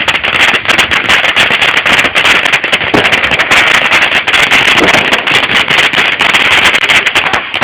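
Consumer firework going off with a loud steady hiss and rapid, dense crackling, which stops abruptly near the end.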